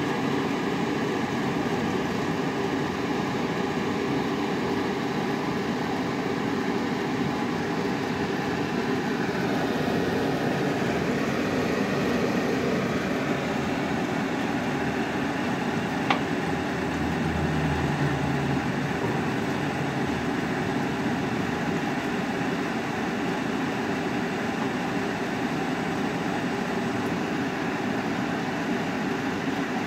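CNC pipe-cutting machine running steadily as its torch head works its way around the pipe: a continuous mechanical hum and hiss with several steady tones. There is one sharp click about halfway through, and a low hum rises briefly just after it.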